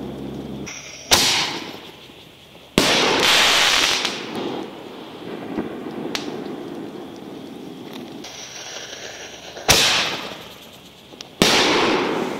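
Two 60-gram canister firework shells fired one after the other. Each sharp launch bang is followed about a second and a half later by a louder bang as the shell bursts into its ring, with a noisy crackling tail after it. The first pair comes in the first few seconds and the second pair near the end.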